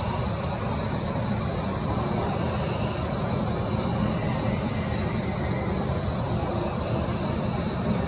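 Steady low rumble of outdoor night ambience with no distinct events, and a few faint, steady high-pitched tones above it.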